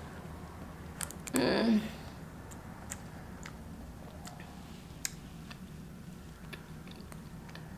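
Close-miked chewing of a Blizzard with cookie and brownie chunks: soft mouth sounds and scattered small clicks. A hummed "mmm" comes about a second and a half in.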